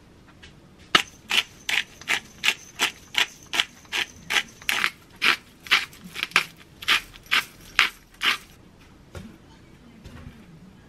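A hand-twisted salt or pepper grinder being turned over a bowl: a steady run of ratcheting clicks, about three a second, lasting some seven seconds, then it stops.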